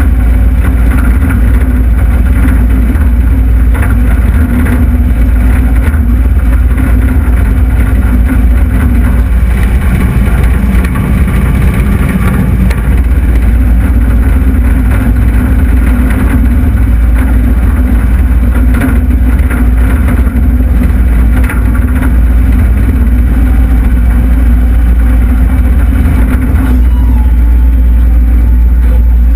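Takeuchi TL26 compact track loader's diesel engine running steadily under load while the machine scrapes dirt, heard loud from inside the operator's cage, with a few short knocks from the machine.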